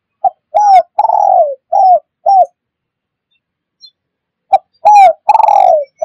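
Spotted dove (tekukur) cooing: a phrase of short, slightly falling coos with one longer drawn-out coo in the middle, then after a pause of about two seconds the phrase begins again about four and a half seconds in.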